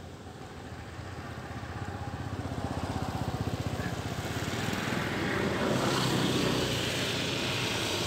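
A small engine running, its fast pulsing growing steadily louder over several seconds.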